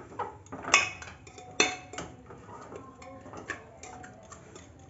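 Metal potato masher pushed down through soft boiled vegetables in a pressure cooker, its head knocking against the pot's metal bottom: a few sharp clanks in the first two seconds, then lighter taps.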